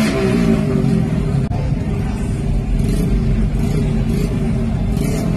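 A vehicle engine idling steadily, just after its revs drop away at the start.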